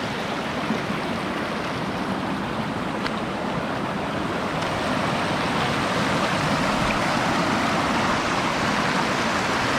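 Shallow river water running over rocks, a steady rush that grows slightly louder about halfway through.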